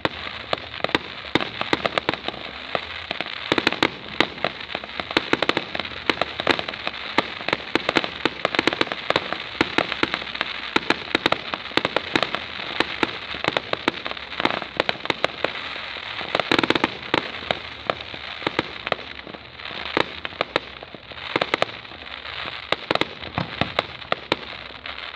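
Fireworks display going off: a dense, unbroken stream of pops and bangs, several a second, with louder reports coming at irregular moments.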